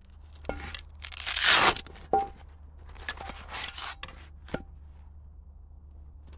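Heavy canvas cloth rustling and swishing as it is shaken out and laid down, loudest about a second in, with three short metallic clinks as a cast-iron frying pan and a metal pot hook are set down.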